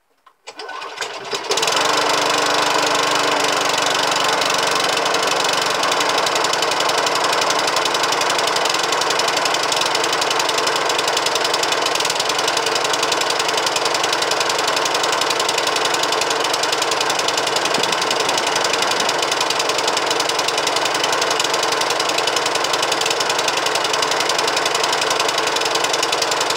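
Qualcast petrol lawnmower engine pull-started, catching about a second in, then running steadily at full speed.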